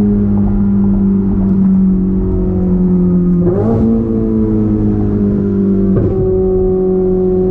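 Ferrari 488 Spider's twin-turbo V8 with Capristo straight pipes (muffler and cat delete) running as the car slows, its note falling steadily, with two downshifts, one midway and one near the end, where the pitch jumps up.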